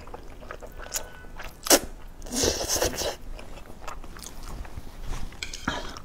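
Close-up mouth sounds of a person slurping and chewing thick spicy fire-chicken instant noodles, in a few short bursts, with a sharp slurp a little under two seconds in and a longer one just after it.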